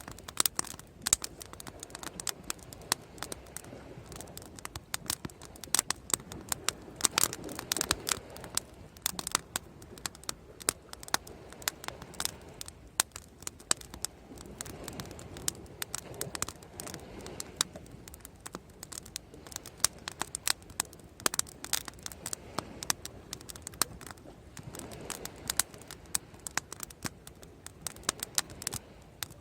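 Wood bonfire crackling: frequent, irregular sharp pops and snaps of burning wood.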